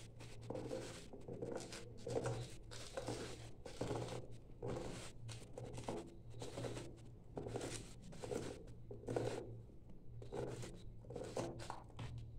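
Dry coconut husk fibres being torn and scraped off the shell by hand: a run of irregular short rasping tears, about two a second, over a steady low hum.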